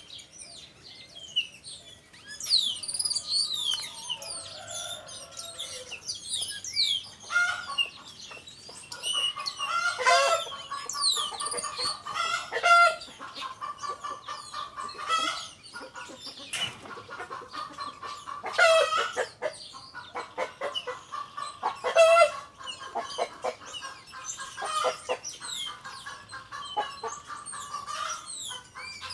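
Chickens clucking with a rooster crowing several times. Small birds chirp in high, quick notes during the first few seconds.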